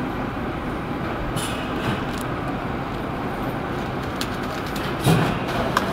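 Steady running noise of a meat-slicing and conveyor line in a processing plant, with brief louder bursts about a second and a half in and again near five seconds.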